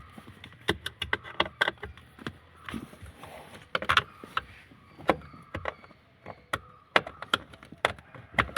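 Irregular clicks, clinks and light knocks of hand tools and parts being handled, roughly one to three a second.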